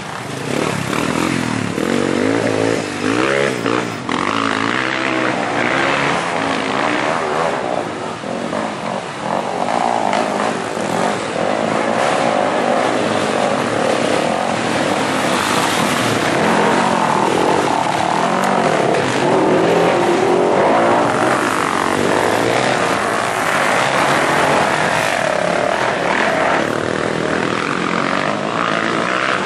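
Several off-road dirt bike engines revving up and down together, rising and falling in pitch as the bikes ride through a shallow creek, with water splashing under the wheels.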